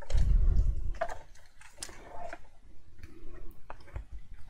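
Card and paper being handled on a cutting mat: a dull bump in the first second, then light taps and paper rustling as a sheet of printed paper is slid across the mat.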